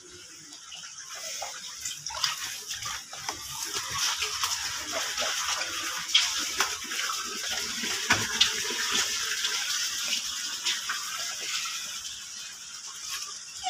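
Rain falling steadily on a house left open to the sky, with many scattered drips and splashes; it grows louder about two seconds in.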